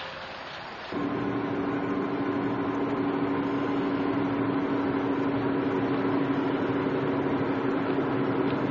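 A steady machine hum at one constant pitch, starting abruptly about a second in.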